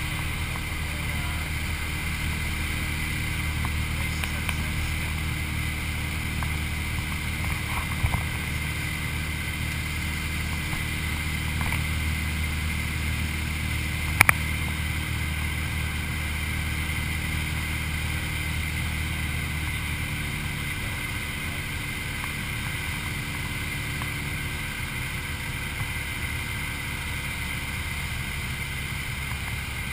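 Single-engine light aircraft's piston engine and propeller droning steadily, heard inside the cockpit. About 20 seconds in, the low note of the drone changes and the level eases slightly. A couple of sharp clicks stand out, about a quarter and about halfway through.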